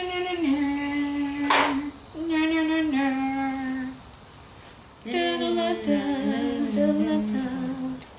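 A woman humming a slow tune in long held notes, in three phrases, with a short hiss about one and a half seconds in.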